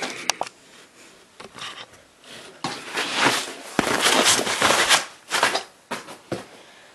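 Plastic packaging crinkling and rustling as plastic-wrapped chair parts are handled, in irregular bursts that are loudest from about three to five seconds in, with a sharp click near the start.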